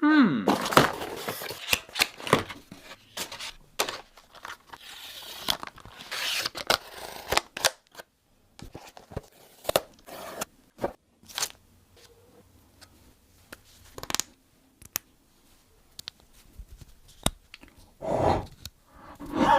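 Packaging being torn and scraped open for the first several seconds, then scattered short clicks and taps as the box and its contents are handled, with a louder burst near the end.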